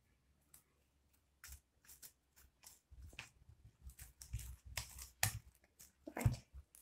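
Freshly activated fluffy slime (white glue mixed with foam) being kneaded and pulled apart in the hands, giving irregular sticky clicks and crackles from about a second and a half in.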